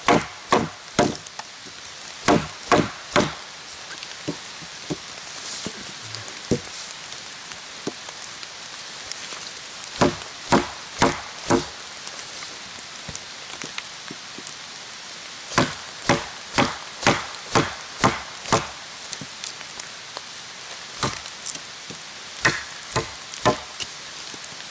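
A wooden baton knocking on the spine of a Solognac Sika 130 Grip bushcraft knife, driving the blade across the grain of a log. The knocks come in quick runs of three to eight, with pauses of a few seconds between runs.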